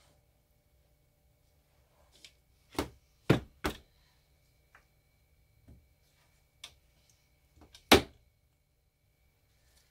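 Scattered knocks and thunks from handling freshly cut bars of cold process soap at a wooden wire soap cutter and setting them down on a metal tray. There are three sharp knocks close together about three seconds in, a few lighter taps after them, and one louder knock near the end.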